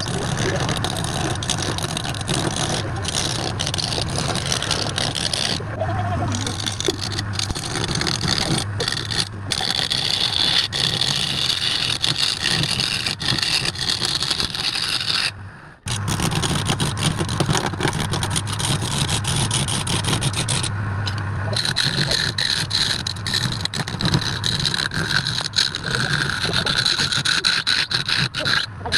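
Wood lathe running with a turning tool cutting the spinning wood: a steady motor hum under continuous scraping hiss, broken off abruptly a few times.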